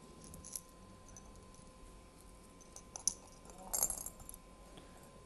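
Small hand tools being handled: a few light clicks and clinks, with a sharp click about three seconds in and a short rattle of clinks just after.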